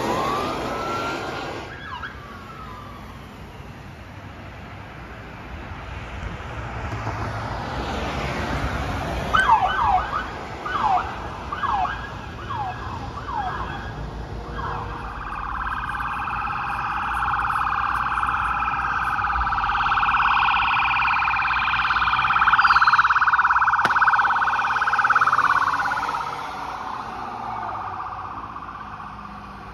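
Police car sirens. A brief warble at the start, then after a quieter stretch a run of about eight short quick whoops around ten seconds in, followed by a long fast-warbling siren that swells, is loudest a few seconds past the middle, and fades near the end.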